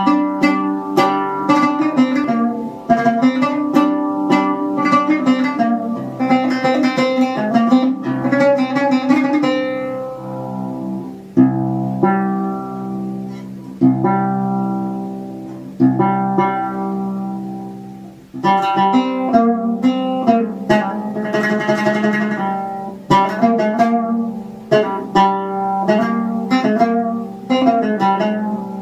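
Modified cümbüş, a fretless Turkish banjo-lute with a skin head, strung with nylon strings in an Arabic tuning, being played: quick picked runs and rapid repeated strokes, with a stretch in the middle of single struck notes and chords left to ring out and fade.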